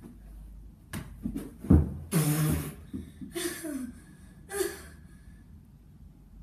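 A few knocks, then a heavy thud of a body landing on a carpeted floor, followed by three short breathy vocal sounds, grunts or gasps.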